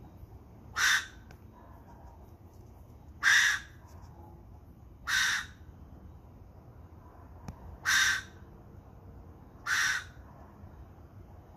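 Babisuri (ringtail cat) calling: five short, harsh calls, each about a third of a second long, spaced roughly two seconds apart.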